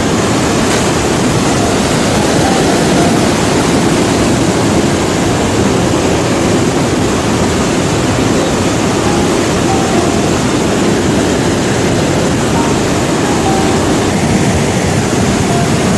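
Floodwater of a flash flood rushing down a valley stream: a steady, loud rush of churning water.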